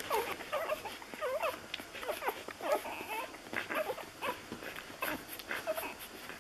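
Newborn Lagotto Romagnolo puppies, six days old, squeaking and whimpering in many short, bending cries while nursing, with small smacking clicks of suckling.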